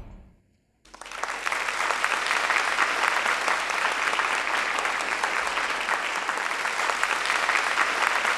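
The last of the dance music dies away, and after a moment of silence an audience starts applauding, a dense, steady clapping that keeps up to the end.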